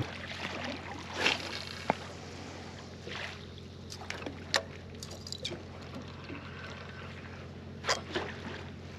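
Water lapping and sloshing against a boat's hull, with a few short splashes and knocks scattered through, over a low steady hum.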